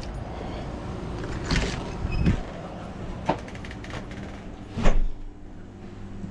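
A door being opened and handled, with a series of latch clicks and knocks, the loudest knock about five seconds in, over a steady low hum.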